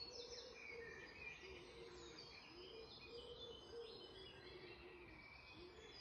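Faint birdsong from several birds: short high chirps and warbling phrases, over a low rising-and-falling call repeated again and again.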